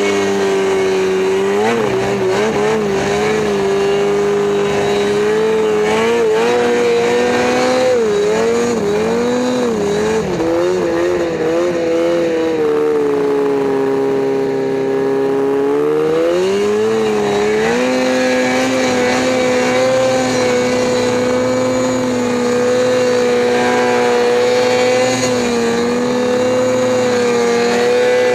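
Snowmobile engine running hard at high, steady revs. Its pitch wavers about a third of the way in, drops for a few seconds just past the middle, then climbs back and holds steady.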